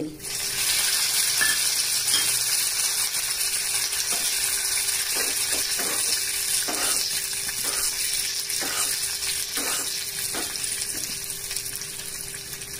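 Dried red chilli pieces and curry leaves dropped into hot ghee in a small tempering pan: a sizzle that starts suddenly and slowly eases, with a metal spoon scraping and knocking the pan several times as it is stirred.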